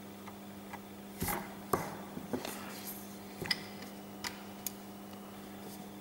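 Rubber eraser rubbing on drawing paper in a few short, irregular strokes, heard as light scuffs and clicks, over a steady low hum.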